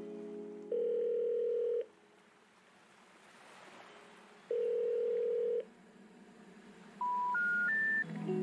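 Telephone ringback tone ringing twice, each ring about a second long with a long gap between. Then three short tones stepping up in pitch, the special information tone that signals a call cannot be completed.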